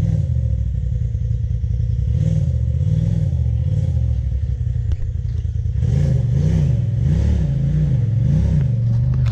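Side-by-side UTV engine revving in repeated throttle blips, its pitch rising and falling about every half second in the last few seconds, as the machine is worked up rock ledges. A few short knocks or clatters come through as well.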